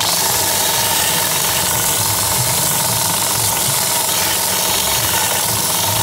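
Ferm belt sander running steadily, its motor humming under the loud hiss of a wooden block pressed against the moving sanding belt.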